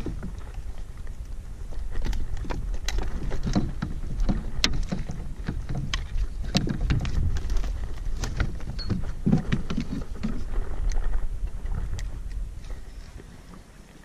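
Scattered clicks, knocks and rattles of fishing gear being handled on a plastic kayak, a landing net and a fish-lip gripper, over a low rumble of wind on the microphone. The handling noise dies away about two seconds before the end.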